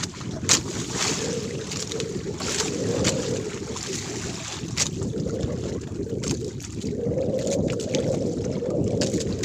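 Sea water sloshing against an outrigger boat's hull and bamboo outrigger, with wind buffeting the microphone in a low rumble that swells and eases every few seconds. A few sharp clicks or splashes cut in, the loudest about half a second in and another near five seconds.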